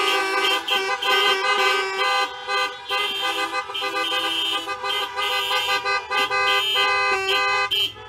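A crowd of car horns honking together, many pitches overlapping into one loud chord, some held and some tapped on and off, all stopping together near the end.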